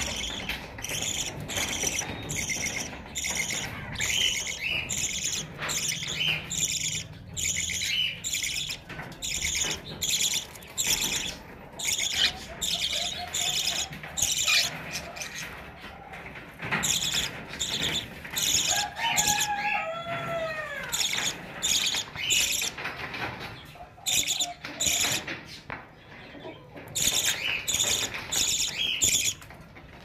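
Budgerigars chattering: a steady stream of short, rapid chirps, with a run of arching whistled notes about twenty seconds in.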